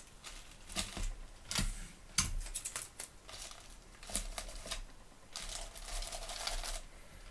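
Hands working magic tape onto loose Bible pages: scattered light clicks, taps and crinkling of tape and paper, with a longer rustle of about a second and a half near the end.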